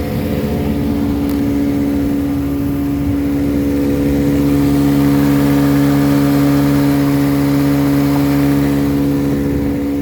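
1957 West Bend-built Elgin 7.5 hp two-cylinder outboard motor running steadily at an even pitch, pushing a small boat along. The motor is running well after a head gasket repair.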